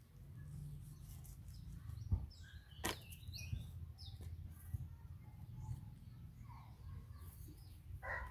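Small birds chirping over a low steady rumble, with two sharp knocks about two and three seconds in, and a rooster starting to crow right at the end.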